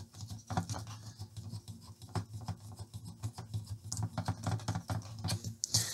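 Light, irregular clicking and scratching of a metal hex nut being turned off a control's threaded bushing by hand, with small ticks of metal on metal.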